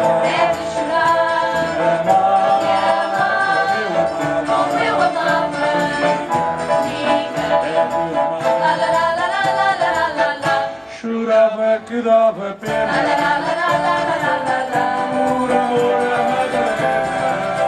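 A live folk group playing and singing: several voices over violin, guitars and keyboard, with light percussion ticking steadily. The sound thins out briefly about eleven seconds in, then the full band comes back.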